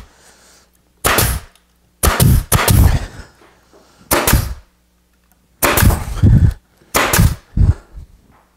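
Grex 18-gauge pneumatic brad nailer firing brads into a plywood cart frame: a string of about eight sharp shots, spaced roughly a second apart with a few in quick pairs.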